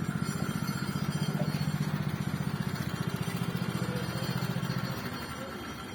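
A motor vehicle's engine running with a rapid, even pulsing, fading away about five seconds in.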